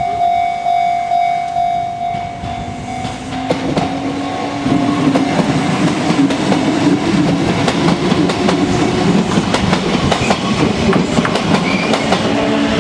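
A level-crossing bell rings steadily, about two strokes a second, and stops about three and a half seconds in. A Kintetsu electric train then passes close by, its wheels clattering over the rail joints under a steady motor hum.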